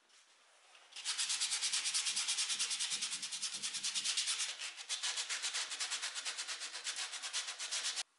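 Hand sanding of a wooden chair armrest with a small sanding sponge: quick, even back-and-forth strokes, about eight a second, starting about a second in and stopping abruptly near the end.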